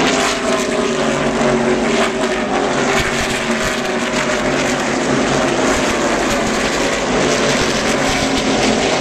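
A pack of NASCAR Cup stock cars running past at racing speed, their V8 engines blending into one loud, steady drone with many engine notes sliding slowly in pitch as cars come and go.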